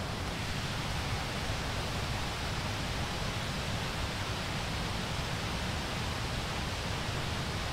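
Steady wind noise: an even rushing hiss with an irregular low rumble of wind buffeting the microphone.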